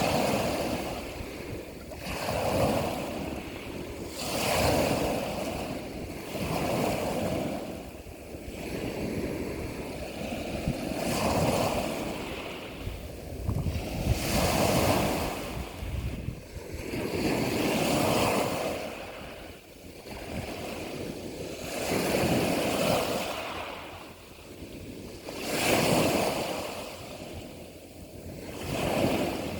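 Sea waves washing in and drawing back in repeated surges every two to four seconds.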